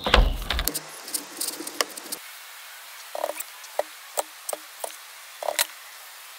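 A low thump as the rack of beef ribs is turned over on the plastic cutting board, then a seasoning shaker shaken over the meat: a run of short, light taps and rattles, about two a second.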